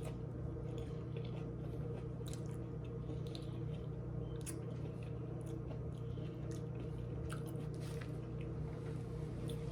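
A person chewing a mouthful of Subway tuna sandwich, with soft, wet mouth sounds and small scattered clicks. A steady low hum runs underneath.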